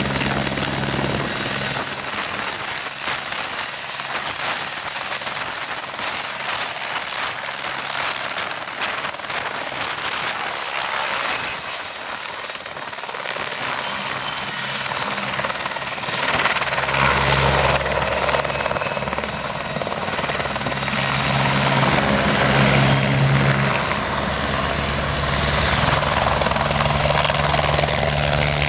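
Eurocopter AS355N Ecureuil 2 twin-turbine helicopter lifting off and flying: a steady high turbine whine over rotor noise throughout. From about halfway the low rotor beat grows much stronger as the helicopter comes in to hover low near the listener.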